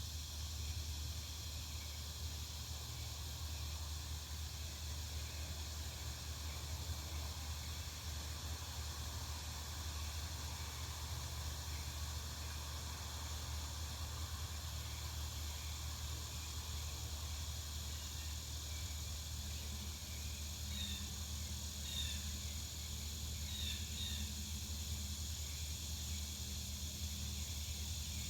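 Back-yard outdoor ambience: a steady low rumble and an even high-pitched hiss of insects, with a few short bird chirps in the last third.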